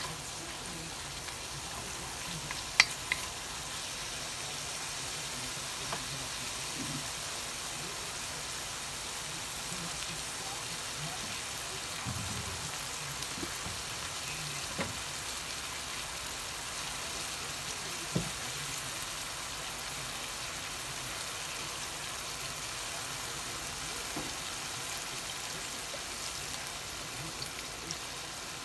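Sliced beef and ginger sizzling steadily in a hot wok, with a couple of sharp clicks about three seconds in.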